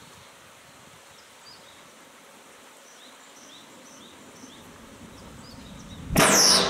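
Quiet countryside ambience with faint chirping, then about six seconds in a sudden loud boom bursts out: a tunnel boom, the pressure wave pushed out of a Shinkansen tunnel's exit portal as a train enters the far end at high speed. The tunnel has no buffer hood to soften it.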